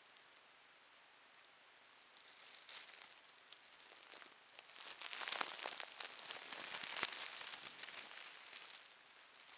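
Thin plastic bags crinkling and rustling: a fine crackle that builds about two seconds in, is loudest in the middle and dies down near the end.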